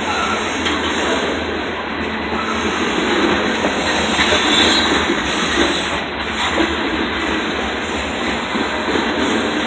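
Covered hopper cars of a freight grain train rolling past at trackside, with steady wheel-on-rail noise from the cars.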